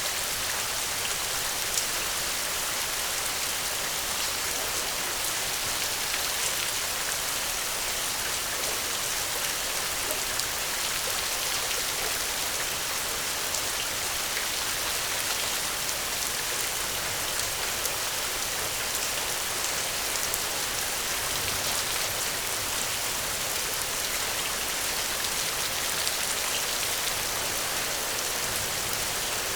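Steady rain falling and pattering on a surface, an even hiss with scattered individual drops ticking through it.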